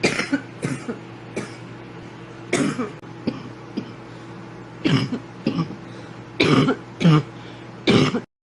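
A girl coughing over and over in short bouts, about ten harsh coughs, some coming in quick pairs.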